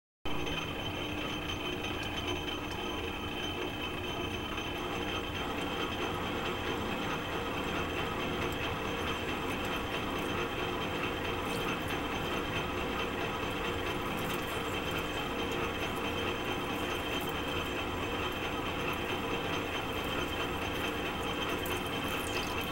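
Metal lathe running, its spindle turning an aluminium silencer tube while a tool cuts grooves into it: a steady mechanical whir with several steady tones, starting abruptly just after the start.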